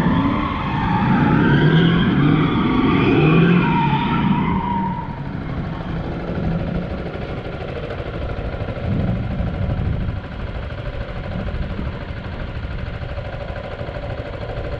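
Two BMW cars drifting, engines revving with rising and falling pitch for the first five seconds, then settling into a quieter, more distant drone.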